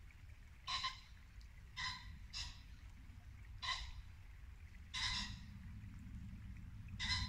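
Muntjac deer barking repeatedly: six short, sharp barks at uneven intervals of about one to two seconds.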